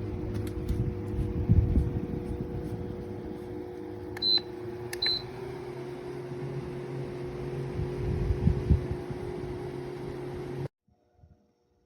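Shinic twin-blade window fan running with a steady motor hum and rumble, with two short high beeps about a second apart partway through; the sound cuts off suddenly near the end.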